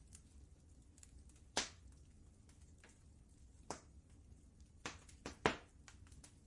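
Wood fire crackling, with scattered sharp pops and snaps at uneven intervals. The loudest pops come about one and a half seconds in and near the end, over a faint low rumble.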